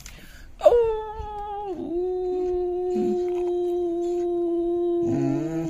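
A long howl that slides down at the start and then holds on one steady note for about four seconds, with a lower second voice joining near the end.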